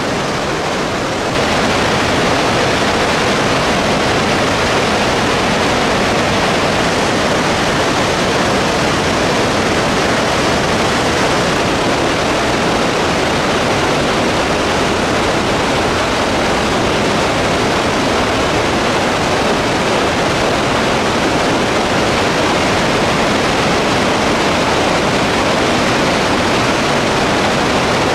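Steady rush of water pouring down the Krka waterfalls, growing louder about a second in.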